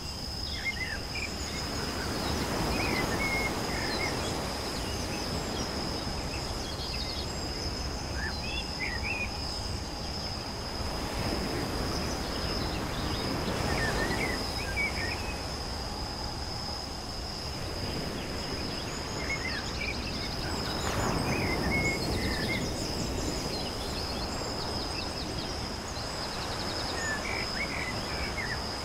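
Outdoor nature ambience: a steady high insect drone with trilling crickets and scattered short bird chirps, over low background noise that swells and fades several times.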